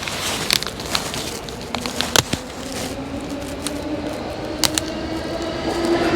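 A few sharp knocks and clicks from a heavy crushing tool worked on a bag of dried crickets. Under them a pitched hum rises and grows louder toward the end as a train approaches.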